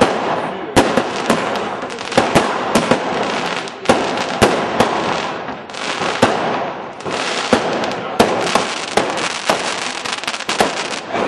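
Fireworks going off: a rapid, irregular series of sharp bangs, roughly two a second, from aerial bursts, over a continuous noisy background of further explosions.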